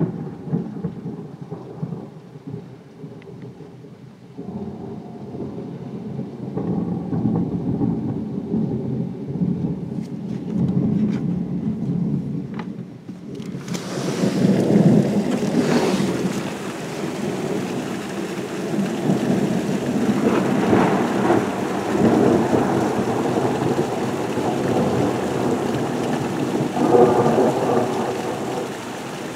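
Thunder rumbling in rolls under heavy rain. About 14 s in, the rain hiss turns suddenly much louder and brighter, and more thunder rolls over it.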